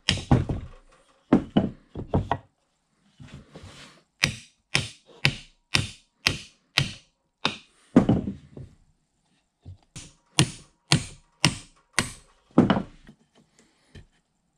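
Brass mallet striking the end of a Bridgeport 6F power feed's clutch shaft to drive it up through the cast-iron housing: sharp knocks, mostly in runs of about two a second with short pauses between, stopping about a second before the end.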